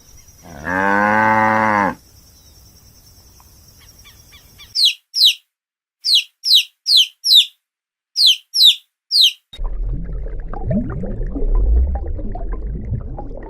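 A cow moos once near the start, a single call a little over a second long. It is followed by three groups of quick, high, downward-sweeping chirps. From about ten seconds in there is a low, noisy rumble with faint pitch glides, whose source is unclear.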